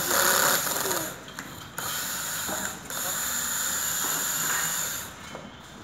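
Cordless drill driving screws into an office chair seat: three runs of the motor, the last the longest, with brief pauses between.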